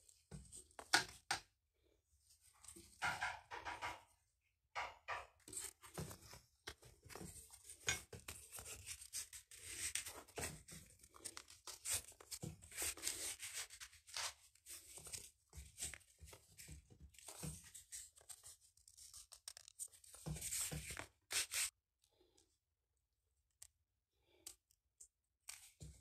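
Handling noise from a leather belt and its steel knife buckle: irregular rubbing and scuffing of leather with small metal clicks, dying away for the last few seconds.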